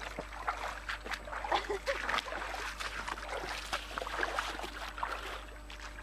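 Boots wading through a shallow stream, with irregular splashing and sloshing steps over the running water.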